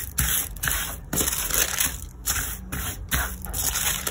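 A crinkled sheet of wax paper rustling and crackling as hands smooth it flat and lift it, in uneven spells with short pauses.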